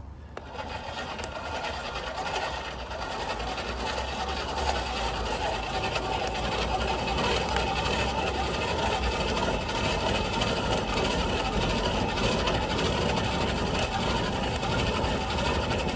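Chicken pieces sizzling and crackling in hot oil in a karahi over a wood fire. The sizzle grows louder over the first few seconds and then holds steady. It is the crackle of oil hot enough to start searing the chicken.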